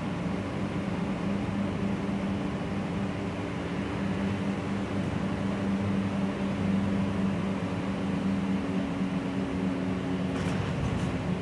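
Gillig low-floor city bus under way, heard from inside the cabin: a steady drone of engine and drivetrain hum over road noise. A few faint high clicks near the end.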